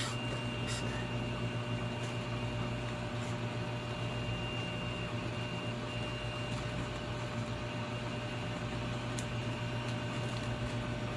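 Steady electric hum with a thin high whine from a running electric fan, with a few faint clicks as felt lantern pieces are handled.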